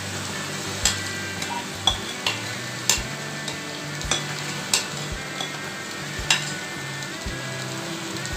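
A spatula stirring marinated chicken pieces into a sizzling tomato-onion masala in a nonstick pot, knocking sharply against the pot about eight times over a steady sizzle.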